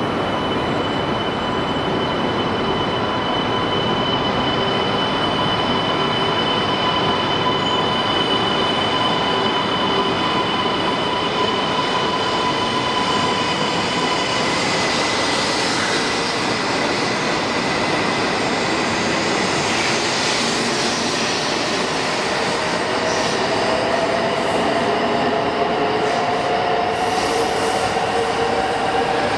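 E2 series Shinkansen, coupled with an E3 series set, pulling out and gathering speed past the platform with a continuous electric train running noise. Its motor whine holds steady tones at first, then climbs in pitch in the last few seconds as the train speeds up.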